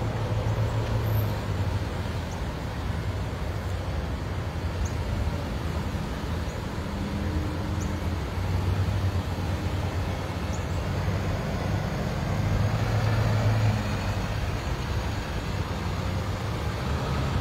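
Motor vehicles driving past in a steady stream: a low engine rumble with road noise that swells as each vehicle goes by.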